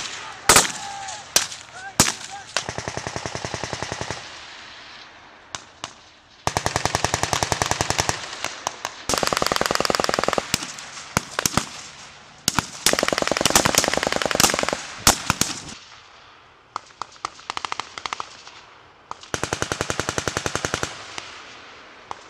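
Small-arms fire: five long bursts of automatic fire, each about two seconds, with scattered single rifle shots between them.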